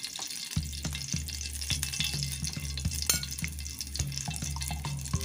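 Cooking oil heating in a nonstick frying pan on a gas burner, sizzling with many small scattered crackles. A steady low hum starts about half a second in.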